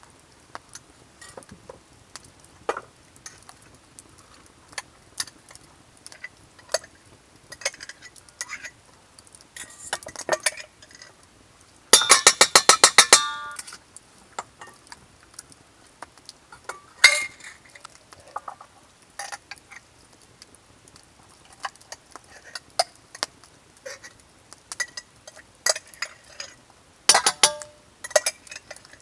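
Glass mason jar, its metal lid and a spoon clinking and scraping as the jar is opened and food is spooned from it into a metal cook pot: scattered light clinks, a fast metallic rattle of about a second and a half near the middle, and a cluster of clinks near the end.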